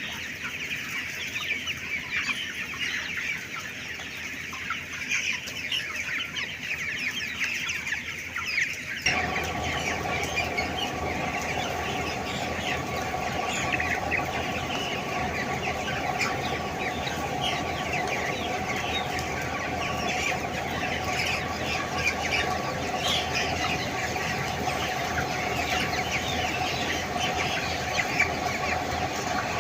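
A large flock of three-week-old broiler chickens in a shed, cheeping and clucking continuously over one another. About nine seconds in, a steady machine hum starts abruptly and continues under the birds.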